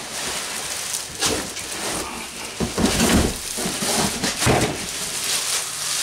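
Plastic wrapping crinkling and a cardboard box rustling and scraping as a plastic-wrapped portable fridge-freezer is lifted out of it, with a few dull knocks about three and four and a half seconds in.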